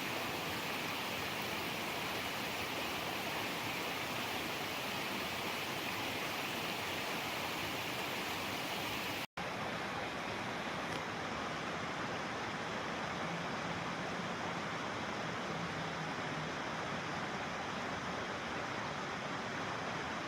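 Steady rushing outdoor noise with no distinct events. It drops out for an instant about nine seconds in, at an edit, and carries on with less hiss.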